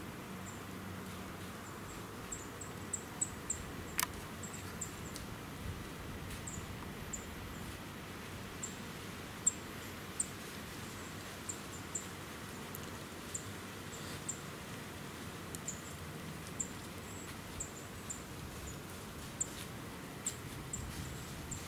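Small woodland birds giving short, very high, thin call notes, scattered irregularly over a quiet steady hush, with one sharp click about four seconds in.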